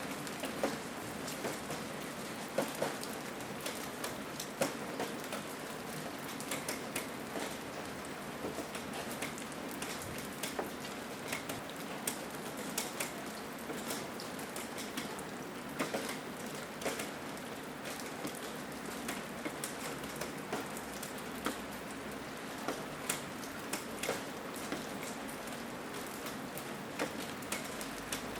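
Rain falling: a steady hiss with many separate drops ticking sharply on a hard surface at irregular moments.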